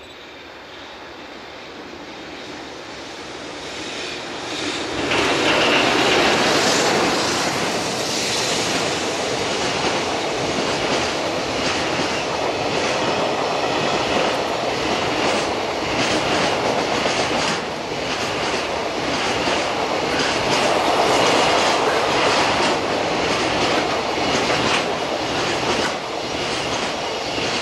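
EH500 electric locomotive hauling a long freight train of container wagons past: the sound builds as it approaches and jumps up about five seconds in as the locomotive goes by, then the wagons run past as a steady rumble with rapid clicks from the wheels over the rail joints, falling away at the very end.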